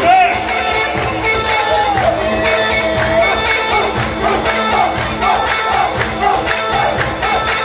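Live Arabic wedding dance music. A lead melody holds one long wavering note for about three seconds, then plays short repeated phrases over a steady drum beat, with the noise of a crowd of dancing guests.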